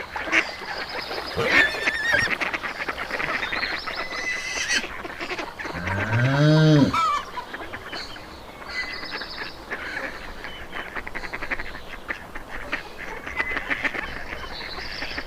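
Farmyard fowl calling: geese honking and ducks quacking over and over, with higher bird chirps mixed in. About six seconds in, a single low drawn-out animal call rises and falls over about a second.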